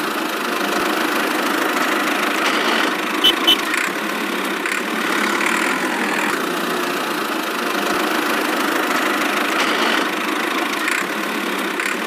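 Engine sound of a miniature toy tractor running steadily as it drives, with two sharp clicks about three seconds in.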